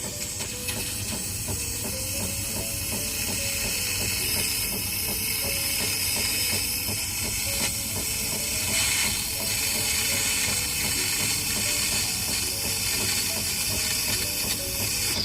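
Espresso machine hissing steadily as it steams and dispenses milk into a cup.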